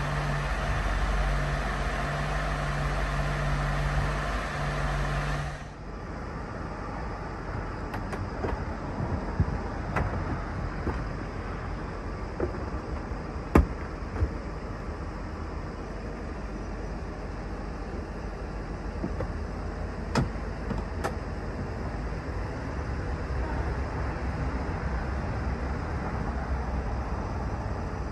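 Mercedes-Benz SL500 5.0-litre V8 idling steadily just after a cold start. About five seconds in, this gives way to the car's power soft top folding down: a low steady hum under a scattered series of sharp clicks and clunks as the tonneau cover, frame and latches move.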